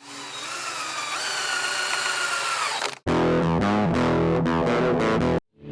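Intro music: a hissing, sweeping effect with gliding tones for about three seconds, then a loud burst of distorted electric guitar that cuts off suddenly.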